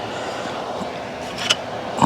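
Fan running with a steady whir, with one sharp clink about one and a half seconds in.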